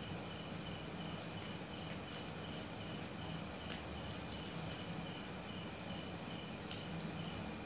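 Steady, high-pitched insect trilling with a faint regular pulsing beneath it, and a few faint crinkles of a folded paper banknote being opened out.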